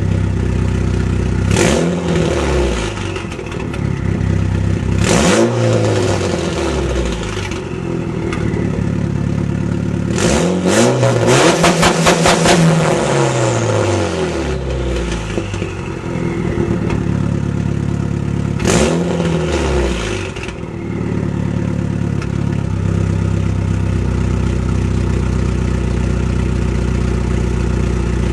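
Mitsubishi Lancer Evolution VIII's turbocharged 4G63 inline-four through a 3-inch stainless straight-pipe exhaust with no cat, resonators or mufflers, idling and being blipped on the throttle. There are short revs near 2 and 5 seconds and again near 19 seconds, and a longer rev in the middle that crackles with rapid pops. It then settles back to a steady idle.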